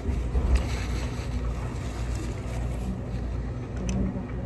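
Restaurant dining-room background noise: a steady low rumble, with a couple of faint light clicks near the end.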